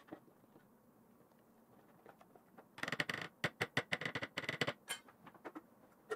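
Small metal spoon stirring thick flour-and-water sourdough starter in a clear plastic quart container: quick scraping and clicking of the spoon against the container's sides, beginning about three seconds in and lasting about two seconds, then a few scattered clicks.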